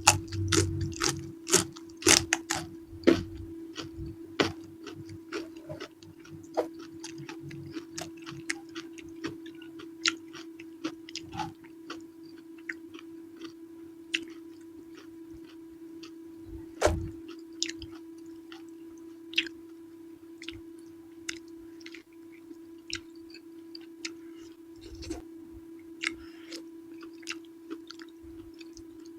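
Close-miked eating: chewing and wet mouth clicks of eating purple eggplant in chili sambal, with sharp clicks coming thick in the first few seconds and then more sparsely. A steady low hum runs underneath.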